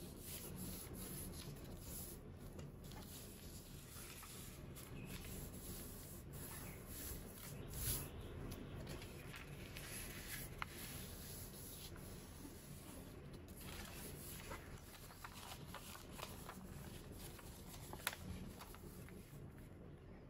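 A sheet of origami paper handled, folded and creased by hand: quiet continuous rustling and rubbing, with a few sharper crackles, the loudest about eight seconds in and one near the end.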